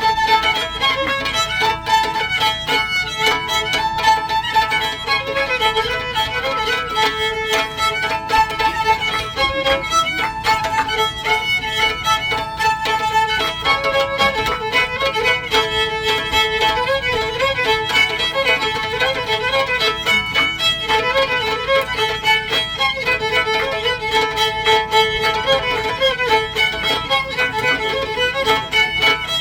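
Fiddle playing a lively dance tune while a second player beats on its strings with fiddlesticks, adding a fast, steady tapping under the bowed melody to make the single fiddle louder.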